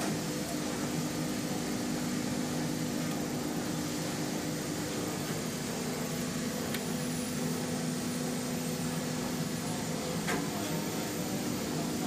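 Steady machinery hum with a low drone, and a single sharp click about ten seconds in.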